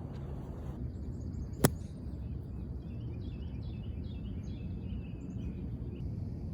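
A golf club strikes a ball once, a single sharp crack about a second and a half in. Birds chirp afterwards over a steady low outdoor background noise.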